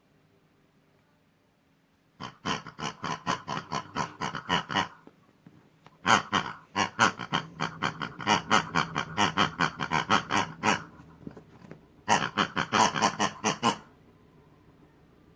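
Quick runs of pig-like oinking grunts, about five a second, in three bursts: about two seconds in, a longer run from about six to eleven seconds, and a short one near the end.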